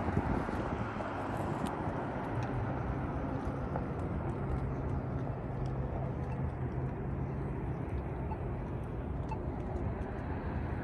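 Onewheel electric board rolling along a concrete sidewalk: a steady low hum from the hub motor and the tyre on the pavement, with faint ticks here and there.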